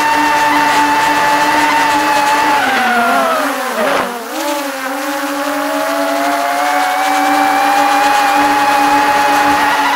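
DJI Mini 3 Pro quadcopter's motors and propellers whining steadily, close to the microphone. A bit over three seconds in, the whine drops in pitch and dips in level, then rises back slowly to its earlier pitch.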